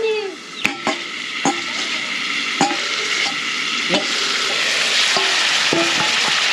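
Pork pieces frying in masala in an iron wok: a sizzle that grows steadily louder, with sharp knocks of the ladle against the pan as the meat is stirred.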